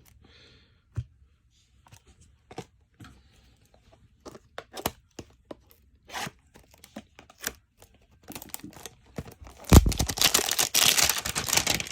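Light clicks and taps of cards and packaging being handled, then a thump and a loud, sustained rip near the end as a trading-card hanger box is torn open.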